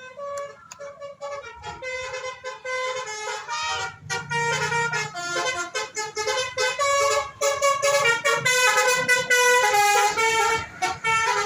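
Basuri telolet bus horn playing a quick tune of short tuned toots, several horn notes sounding together and stepping up and down in pitch, getting louder over the first half.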